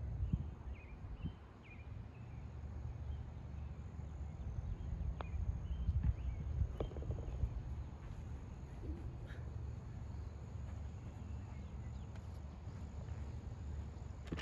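Quiet outdoor ambience: a low, steady rumble of wind on the microphone, with a few faint bird chirps in the first couple of seconds and a couple of faint clicks later on.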